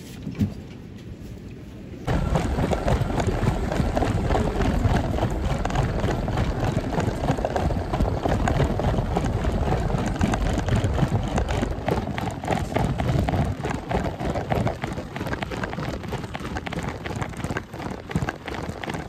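Loud, dense rustling and crackling handling noise from a phone's microphone rubbing against clothing and hair while the person holding it walks, starting abruptly about two seconds in after a short quieter stretch with a single click.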